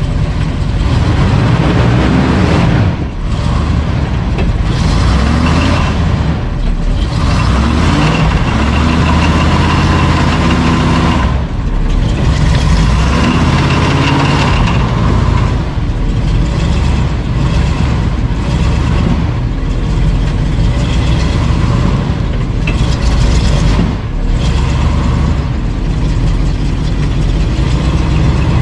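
Old square-body pickup truck's engine running and being revved several times in the first half, the revs rising and falling, then running more steadily. The truck is smoking from the exhaust, freshly started.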